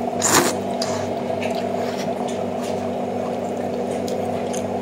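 A person slurping noodles from soup: one loud slurp about a quarter second in, then smaller, fainter mouth sounds. A steady low hum runs underneath.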